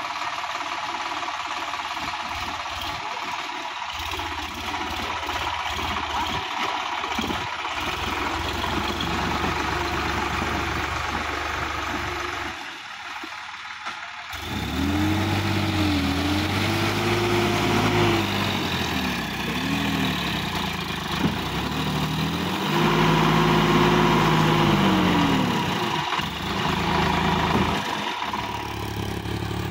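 Sonalika DI-50 RX tractor's diesel engine running at a steady speed, then revving up and down in several rises and falls as the tractor pulls through deep mud. The revving is louder than the steady running.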